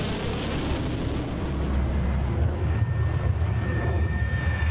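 Messerschmitt Me 262 jet fighters flying in formation, as mixed for a war film: a heavy, steady engine rumble. About halfway in, a high jet whine joins it and slowly falls in pitch.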